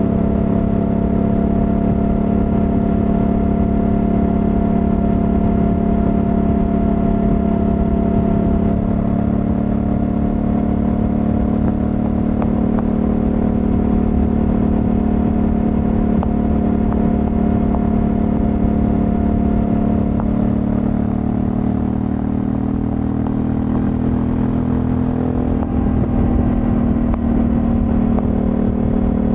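Honda Africa Twin 1100 DCT's parallel-twin engine running steadily at motorway cruising speed, its note rising a little in pitch over the last several seconds.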